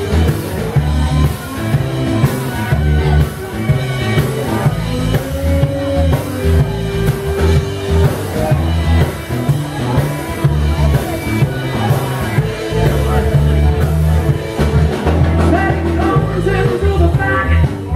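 Live blues-rock band playing: two electric guitars over a drum kit in an instrumental stretch, with a woman's singing voice coming in near the end.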